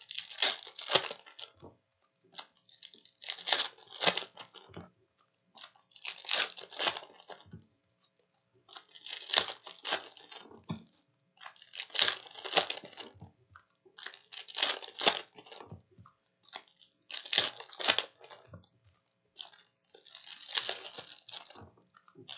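Foil wrappers of 2019-20 Donruss Optic trading-card packs being torn open and crinkled one pack after another, a short crackling tear about every three seconds.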